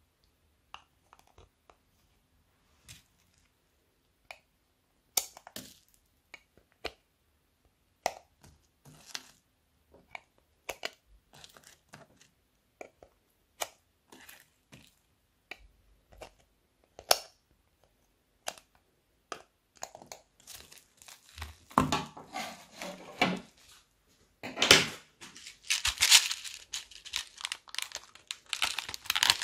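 Scattered sharp plastic clicks and taps as baked eyeshadows are pried out of a plastic palette with a metal tool, then a denser run of louder plastic crackling and clicking in the last few seconds as a clear plastic compartment box is handled and opened.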